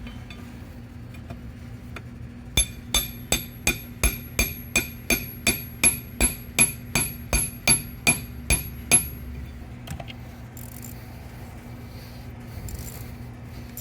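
Hammer striking a bit driven into the stripped Allen-head bolt of a Cummins CP3 fuel regulator: about eighteen steady metal-on-metal blows, roughly three a second, each with a short ringing note, stopping after about six seconds.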